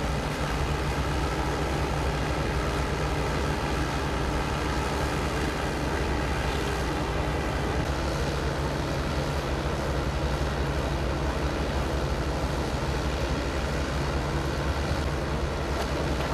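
Steady hum of idling heavy-vehicle engines, a constant low drone.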